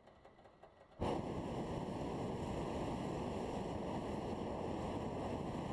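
Hot air balloon propane burner firing: a steady roar that starts suddenly about a second in and holds.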